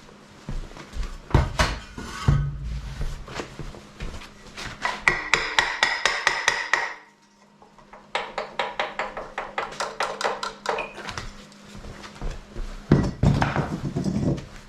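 Socket ratchet clicking in quick, even runs of about six clicks a second as the fan bolts on a Ford 460 big-block are backed out. Heavier knocks and clunks of tools and metal parts come in between the runs.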